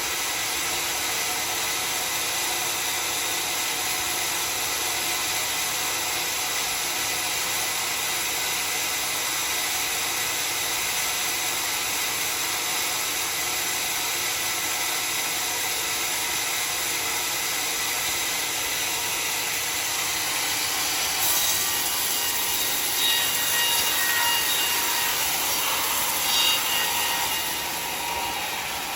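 Homemade sawmill's saw cutting through a dry, very hard acacia log: a steady sawing and machine noise. High-pitched ringing squeals come and go over the last several seconds.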